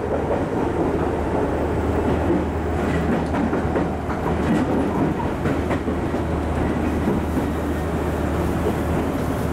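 Chichibu Railway 5000-series electric train running, heard from inside the driver's cab: a steady rumble of wheels on the rails with a constant low hum and a few faint clicks from the track.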